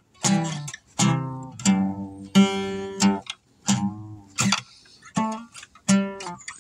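Solo acoustic guitar played slowly: plucked notes and chords, each ringing and fading, with short gaps between them.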